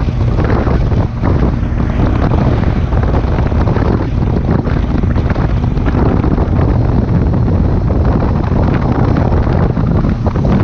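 Heavy wind buffeting on the microphone of a moving Honda CB400 Super Bol d'Or motorcycle, with the bike's inline-four engine running steadily underneath.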